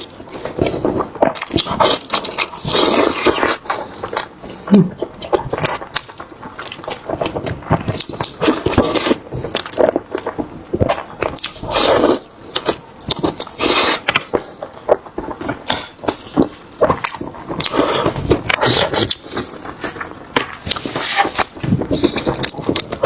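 Close-miked eating of a lamb brain: chewing and biting with many short, irregular mouth clicks and smacks.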